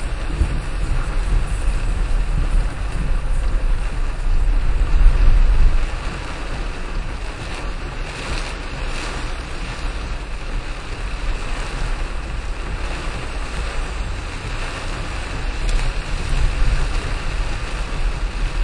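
A car driving through heavy rain, heard from inside: a steady rushing of rain and wet-road spray over a deep rumble, swelling louder for a couple of seconds around five seconds in.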